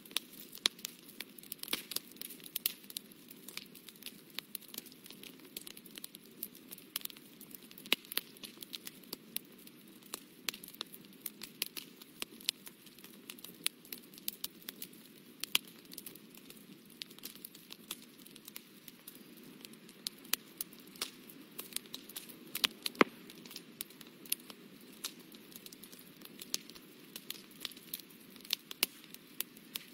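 Fine-tipped brush dabbing and scratching on watercolour paper: a stream of faint, irregular ticks and crackles, several a second, over a steady low hiss.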